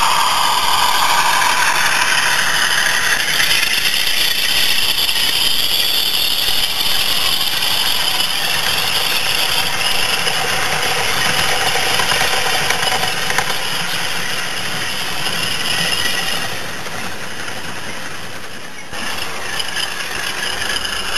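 Model train rolling past close by on garden railway track, its wheels rattling steadily over the rails.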